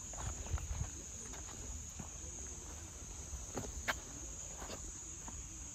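Insects chirring steadily at a high pitch, with irregular footsteps on the trail, a few light steps a second.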